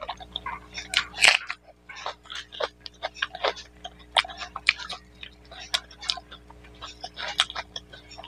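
Close-miked eating sounds: wet clicks and smacks from hand-mixing rice with mutton curry and from chewing, a few to the second and uneven. A faint steady hum runs underneath.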